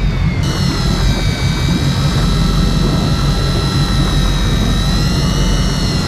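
Electric deep-drop fishing reel's motor whining steadily as it winds in line from a hooked fish, over a heavy low rumble of wind and boat noise.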